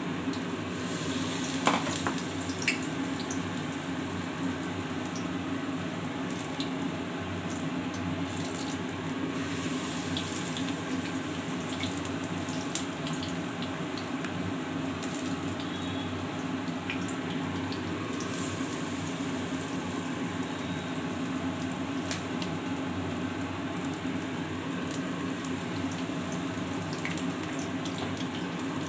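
Batter-coated agati (bok phool) fritters deep-frying in hot refined oil in a kadai over a medium gas flame: a steady sizzle, with a few sharp clicks near the start and about halfway through.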